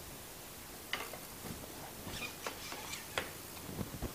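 Light, scattered clicks and taps of the Shaper Origin's spindle motor being handled and seated into its mount on the handheld CNC router, with a sharper click a little after three seconds.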